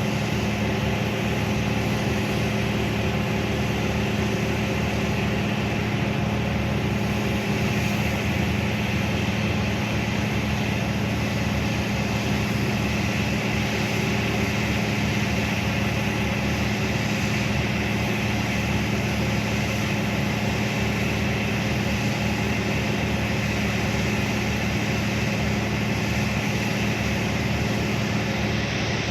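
Heavy diesel engine of a Hitachi 1200 excavator running steadily, a constant drone with a strong low hum that does not rise or fall.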